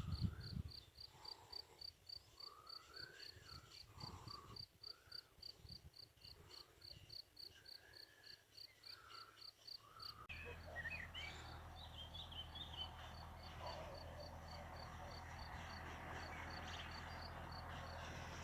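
Faint outdoor spring ambience: a steady run of short high chirps, about three or four a second, with scattered bird calls. About ten seconds in, the background changes to busier birdsong over a low steady hum.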